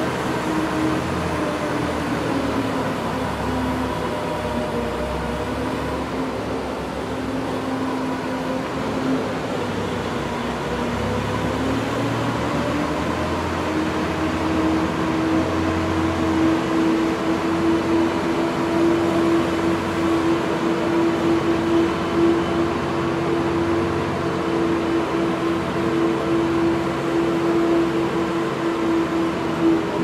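Zamboni ice resurfacer running with a steady engine hum over an even hiss. The engine note drops a little about two seconds in and climbs back to its first pitch around twelve seconds in.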